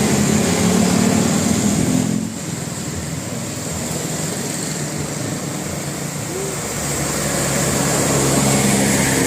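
A bus's engine running close by, with a steady high hiss over it. The engine sound drops away about two seconds in and builds again near the end; no horn is sounded.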